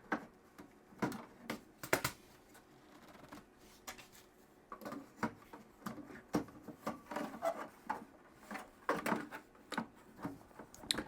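Irregular clicks, taps and light scrapes of hard plastic and metal computer parts being handled and fitted back together by hand.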